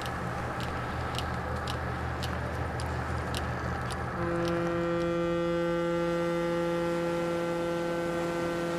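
A ship's low steady engine hum with faint ticks about twice a second. About four seconds in, a ship's horn sounds one long steady blast that lasts about five seconds.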